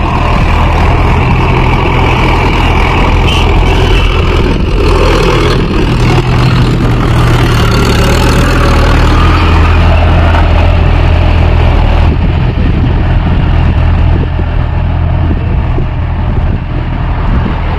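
Mahindra 415 DI tractor's four-cylinder diesel engine running steadily under load while pulling a spring cultivator through the soil. The sound turns duller, with less treble, about two-thirds of the way through.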